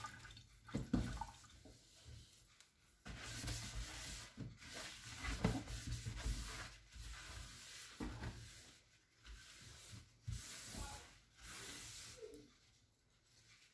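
A cloth rubbed over the inside of a wet stainless steel sink basin in a run of irregular wiping strokes, wiping off the leftover rinse water. It dies down near the end.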